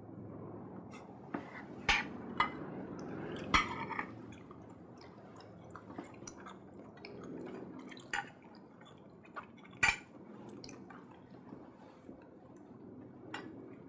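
Knives and forks clinking and scraping on dinner plates, a scatter of light metal-on-china clicks with a few louder clinks, over a low steady room hum.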